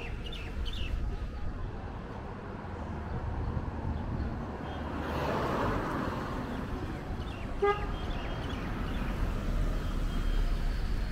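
Street traffic with cars passing, one swelling past about halfway through, and a short car horn toot a little later. Birds chirp briefly at the start.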